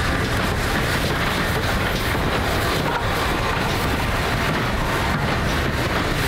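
Great Western Castle-class steam locomotives coupled in a line, rolling slowly past at close range: a steady rumble of wheels and running gear on the track.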